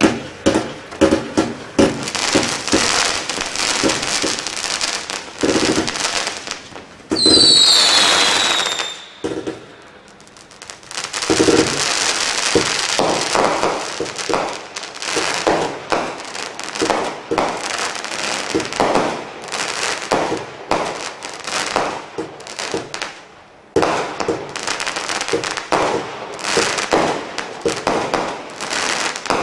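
Standard Fireworks Blast Furnace single-ignition firework cake firing shot after shot: rapid launches and bursts with crackle. About seven seconds in, several whistles sound together, falling slightly in pitch, with loud bursts. There is a short lull about ten seconds in.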